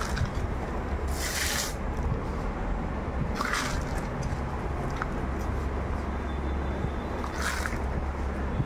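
Hands pressing and working potting soil around a plant's root ball in a clay pot: three short gritty rustles over a steady low hum.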